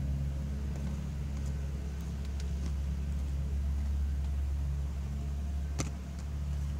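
Steady low mechanical hum, with one sharp knock near the end.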